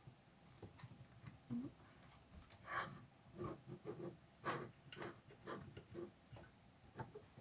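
Faint handling noises: scattered light clicks and rustles, the loudest about three and four and a half seconds in.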